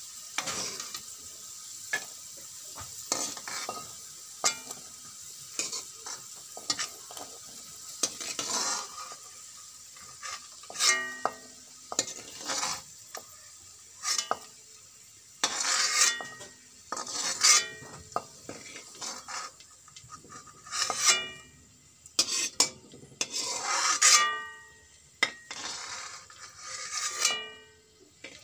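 Metal ladle stirring and knocking against a metal wok while peas and carrots sizzle in hot oil. From about a third of the way in come louder scrapes, each with a short metallic ring, as the vegetables are scooped out of the pan.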